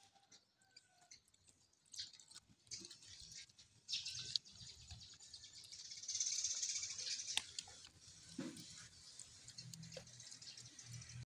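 Several dogs eating rice from a plate: a scatter of wet chewing, smacking and lapping clicks, busiest around the middle.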